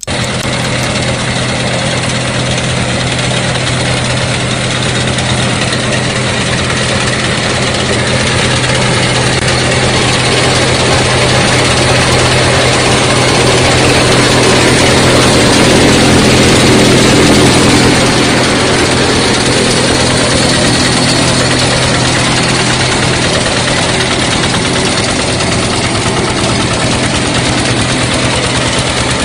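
Small single-cylinder diesel engine running steadily, belt-driving a chaff cutter's rotor. The sound swells for a few seconds midway and drops back sharply about eighteen seconds in.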